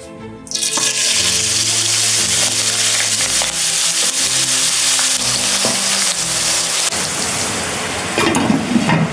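Loud, steady sizzle of raw matchstick-cut potatoes frying in hot oil in a nonstick pan, starting suddenly about half a second in as they are dropped into the oil, with a wooden spatula stirring through them.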